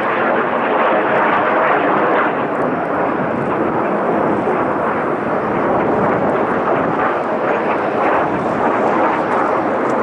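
Steady jet roar from a formation of Kawasaki T-4 aerobatic jets flying a smoke-trailing loop overhead.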